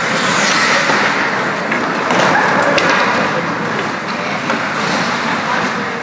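Ice hockey rink game noise: a steady wash of spectator chatter and skates scraping the ice, with a couple of sharp clacks of sticks on the puck.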